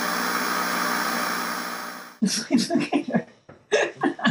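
Steady television static hiss with a faint buzz in it, fading out about two seconds in. Then short bursts of voices and laughter.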